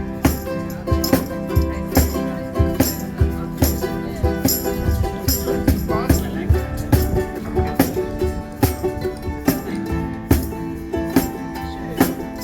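Ukuleles strummed in a lively song, with hand percussion such as a shaker and tambourine keeping a steady beat.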